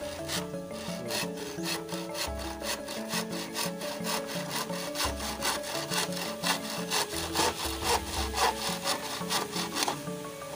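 Hand saw cutting back and forth through dry, crumbly salvaged building timber in quick short strokes, about four a second. The strokes grow louder in the second half.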